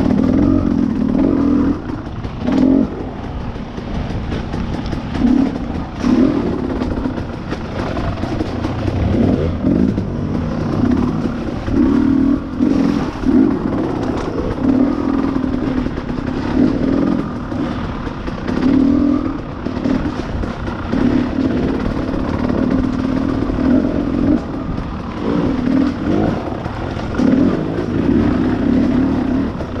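Two-stroke dirt bike engine under way on a muddy trail, the throttle opening and closing every second or two so the engine note keeps rising and falling. A few sharp knocks come from the bike over rough ground.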